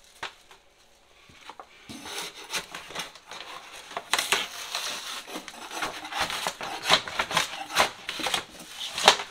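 Old wallpaper backsplash being scraped and torn off a kitchen wall with a metal 5-in-1 scraper tool. Starting about two seconds in, there is a rough run of scraping and ripping noises broken by sharp clicks and knocks.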